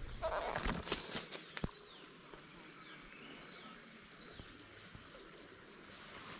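Steady high-pitched insect drone from crickets or cicadas in riverside vegetation, with a few short falling bird calls in the middle. Several close clicks and rustles in the first two seconds.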